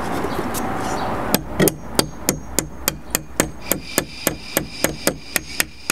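Hammer gently tapping nails into pallet-wood slats: a quick, even run of light taps at about four a second, starting about a second and a half in after a steady rush of noise.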